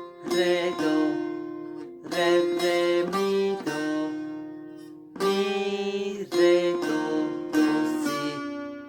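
Bağlama (long-necked Turkish saz) plucked with a plectrum, playing a slow folk melody: single ringing notes in short phrases.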